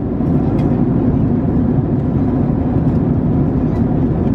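Steady in-flight cabin noise of a Boeing 767-300ER: a deep, even rush of engine and airflow noise, with a few faint light clicks over it.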